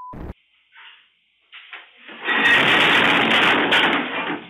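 A censor bleep cuts off at the very start; then, about two seconds in, a loud crash and clatter lasting about two seconds: glass bottles falling from a store shelf and breaking.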